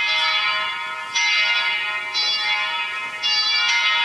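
Church bells ringing, a new strike about once a second, each ringing on until the next.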